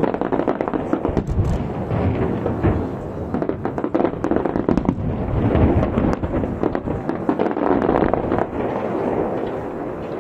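Aerial fireworks shells bursting over the sea in a dense, continuous barrage: many overlapping bangs and crackles with a steady rumble underneath.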